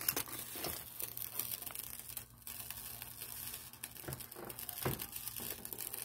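Aluminium foil crinkling and rustling as a foil-lined baking pan is handled, in irregular small crackles, over a faint steady low hum.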